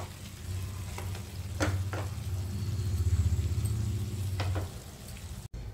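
Chicken pepper fry sizzling lightly in a nonstick frying pan as a wooden spatula stirs it, with a few sharp taps of the spatula against the pan over a low steady hum. The sound cuts off abruptly near the end.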